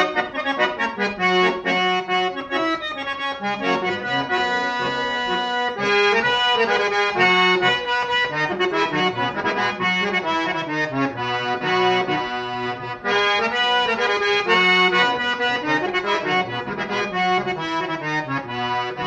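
Instrumental break of traditional folk music led by an accordion, playing a quick melody over a stepping bass line, with no singing.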